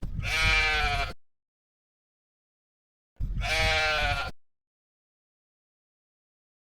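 Two bleats from a sheep or goat, each about a second long and about three seconds apart, with silence between them.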